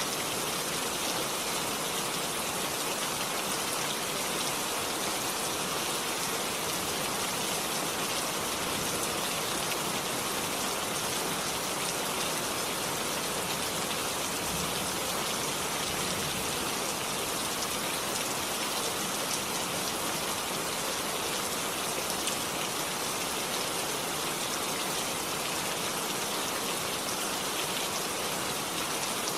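Steady rainfall, an even hiss of many drops with no let-up or change.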